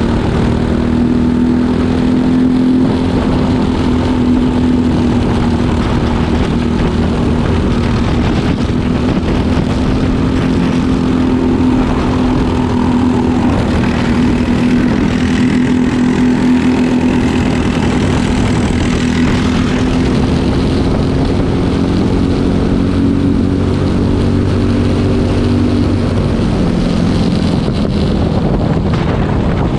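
Briggs & Stratton four-stroke racing kart engine running hard at speed under the onboard camera, a steady buzzing note whose pitch wavers a little through the corners and eases down near the end.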